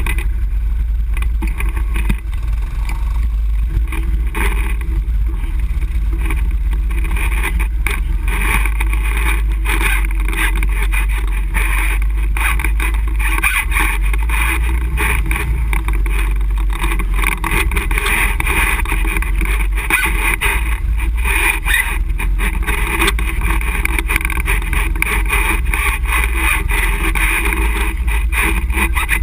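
ATV engine running steadily while riding over a rough trail, heard from a camera mounted on the machine: a constant low rumble with frequent small knocks and rattles from the bumps.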